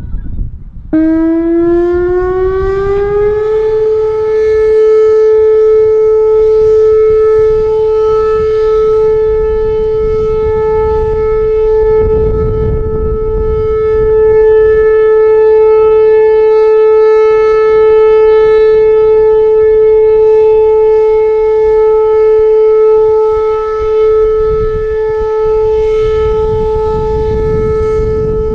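Whelen Vortex electronic outdoor warning siren sounding its Alert signal during a siren test: about a second in it comes on and rises in pitch for a couple of seconds, then holds one steady, loud tone with strong overtones.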